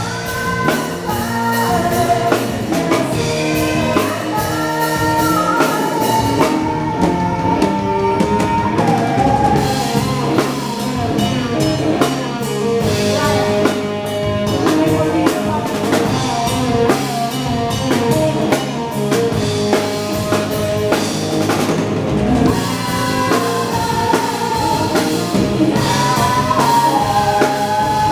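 Live band playing an upbeat dance song: a drum kit keeps a steady beat under a sung melody, with other instruments.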